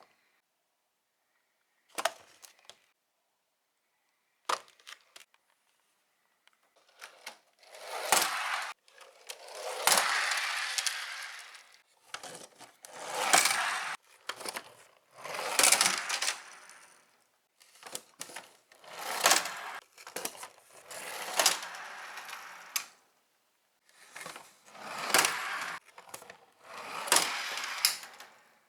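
Small toy cars rattling down a plastic slide track, run after run. First a few single clicks, then a clatter of a second or two every two to three seconds, each with sharp knocks in it.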